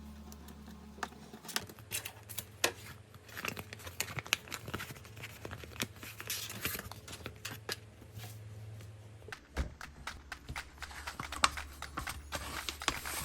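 Paper being handled close up: irregular crinkling and rustling with many small sharp clicks and taps, as a paper squishy is worked by hand.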